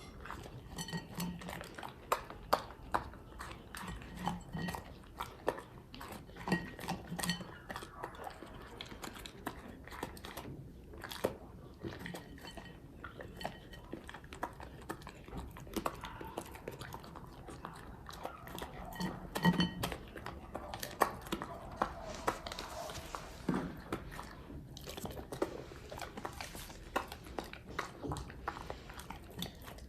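A dog eating: steady irregular chewing and crunching, with clatter of the food bowl.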